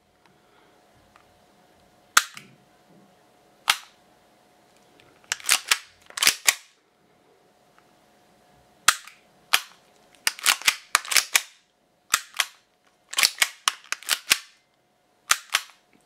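Tokyo Marui Glock 26 and Glock 17 airsoft gas-blowback pistols dry-fired in turn: a series of sharp clicks, often in quick pairs, as each hammer snaps forward onto the knocker. The Glock 17's click is duller, which is typical of a fatigued hammer spring that no longer strikes the valve knocker hard enough to cycle the blowback reliably.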